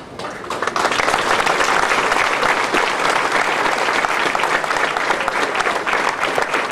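Audience applauding: many hands clapping, swelling up over the first second and then holding steady.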